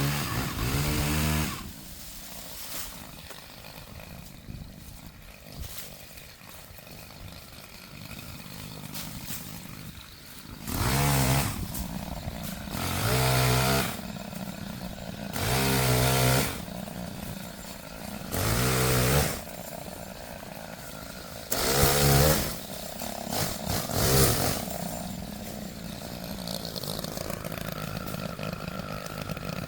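Gas chainsaw idling, with about seven short bursts of full throttle, each revving up and dropping back to idle.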